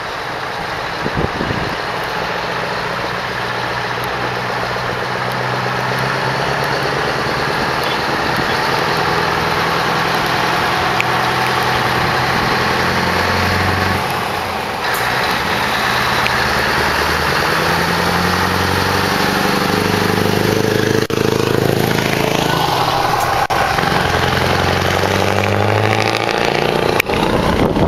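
Scania T-series V8 truck engine with open exhaust pipes, pulling away and driving past; the engine note rises and falls in steps with the revs and gear changes. It grows louder as the truck approaches and is loudest near the end as it passes.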